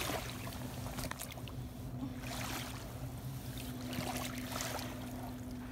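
Shallow water lapping and sloshing, swelling and easing every second or so, with a few small splashes and a steady low hum underneath.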